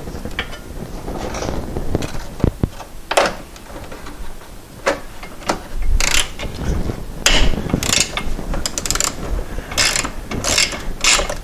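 Hand ratchet wrench clicking in irregular strokes, quickening into a fast run of clicks near the end, as bolts on a car's shift linkage are worked loose.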